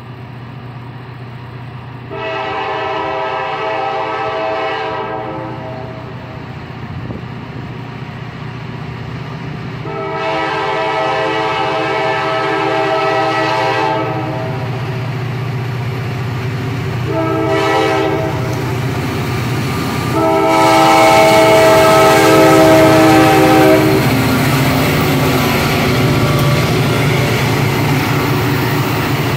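Diesel locomotives of a loaded rock train sounding a multi-note air horn in the long, long, short, long pattern for a grade crossing. Under the horn, the low rumble of the engines grows louder as the train draws near.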